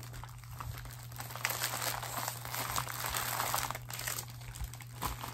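Packaging crinkling and rustling as items from a shopping haul bag are handled, busiest in the middle of the stretch.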